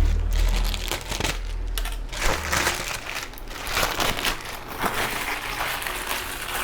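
Plastic packaging crinkling and rustling as it is handled and opened, in irregular crackly strokes. A low rumble runs under it for the first couple of seconds.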